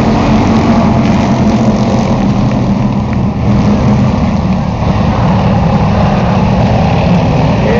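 A pack of Charger-class stock cars racing at full throttle just after the green flag: many engines running together in a loud, steady drone.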